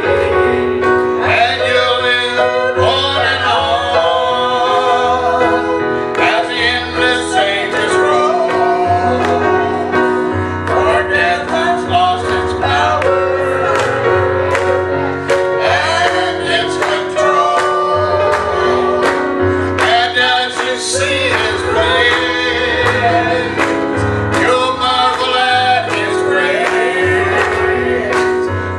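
A gospel song: singing over a steady instrumental accompaniment with a stepping bass line and a regular beat.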